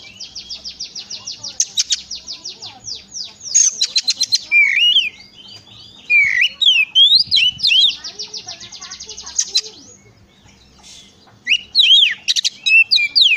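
Oriental magpie-robin (kacer) singing: a long run of rapid repeated high notes, then varied whistled phrases with quick rising and falling slurs, a short lull, and a loud burst of whistles near the end.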